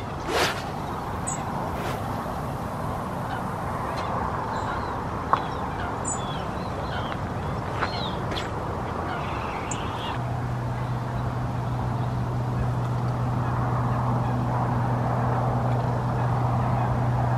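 A heavy spod rod swishing through a cast as a Spomb bait rocket is launched out over the lake, with a sharp click about five seconds in. Water birds call now and then, and a low steady drone comes in about ten seconds in.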